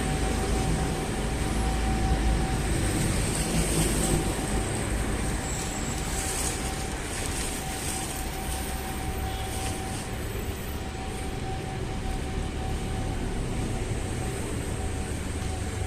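City street ambience: a steady rumble of passing traffic, with a thin steady hum.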